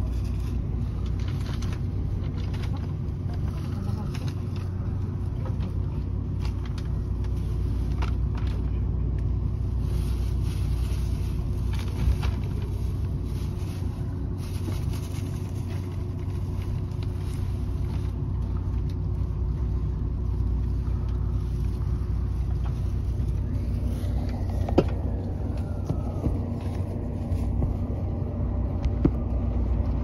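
Steady low hum and rumble inside the passenger cabin of a stationary JR West 683 series electric train, with a few sharp knocks.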